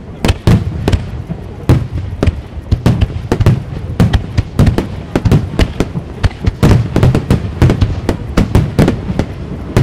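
A rapid barrage of aerial firework shells bursting, about four sharp bangs a second with a continuous low rumble beneath them.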